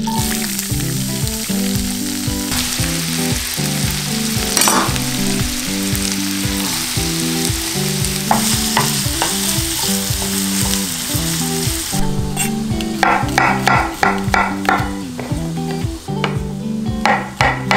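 Chopped onion sizzling as it fries in melted butter in a frying pan. About twelve seconds in, a knife starts slicing champignon mushrooms on a wooden cutting board, about four quick cuts a second, with a few more cuts near the end.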